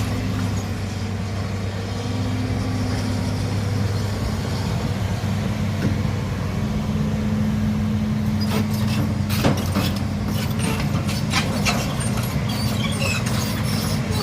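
Excavator's diesel engine running steadily while it works, its note shifting as the hydraulic load changes, with several sharp knocks and clanks in the second half.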